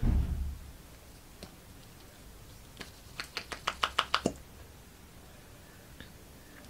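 A lip gloss tube and its wand being handled: a low bump at the start, then a quick run of about nine small sharp clicks, about six a second, getting louder.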